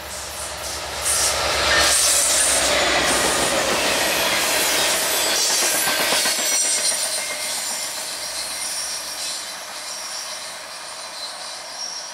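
Norfolk Southern EMD SD70M diesel locomotive passing close by with its engine running, then a short string of ballast cars going past with thin, high wheel squeals. The sound is loudest from about two seconds in and fades as the train moves away.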